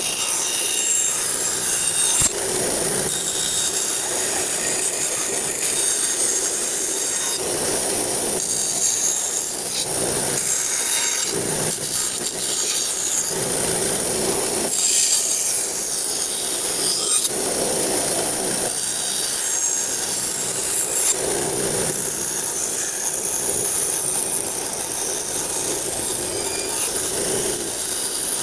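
A hand tool rubbing and scraping across wood in repeated back-and-forth strokes, one stroke every second or two, over a steady high hiss.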